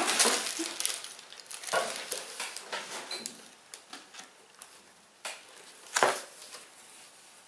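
Rustling and soft knocks as a terry-cloth guest towel is handled and turned over, densest at the start, with one sharper knock about six seconds in.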